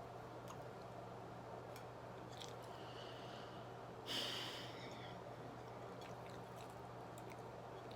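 Quiet mouth sounds of someone chewing pizza, with faint scattered clicks and a short breathy noise about four seconds in, over a steady low hum.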